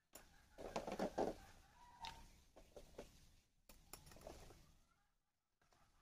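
A few faint knocks and clicks, the loudest around the first second, and a faint short bird call about two seconds in.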